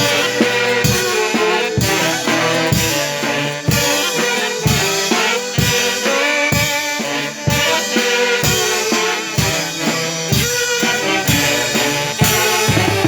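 Band music with a drum kit keeping a steady beat, the bass drum hitting about once a second under sustained melody lines.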